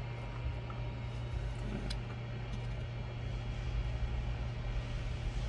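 Steady low background hum, with a faint click about two seconds in.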